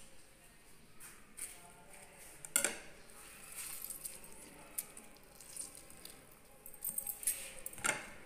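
Faint, scattered clinks and taps of kitchen utensils and dishes, with sharper ticks about two and a half seconds in and near the end.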